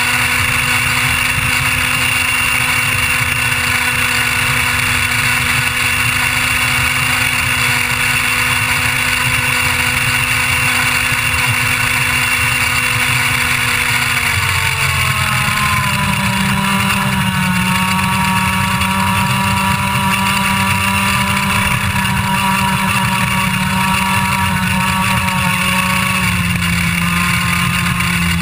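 IAME Leopard 125cc two-stroke kart engine screaming at a steady high pitch near full revs. About halfway through its pitch drops and settles lower, then drops a little again near the end, as the revs come down from about 14,800 to about 10,300 rpm. A steady rush of wind noise runs underneath.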